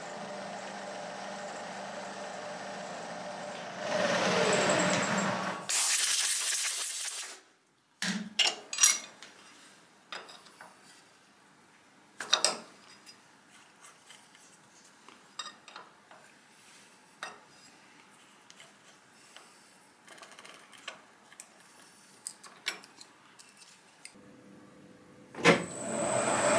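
Milling machine end-milling a slot in a Delrin plastic part with a steady hum; about four seconds in it grows louder with a falling whine, then comes a loud hiss of about two seconds. Scattered light clicks and knocks of the part and collet block being handled follow. Near the end a sharp knock and a lathe starts running steadily.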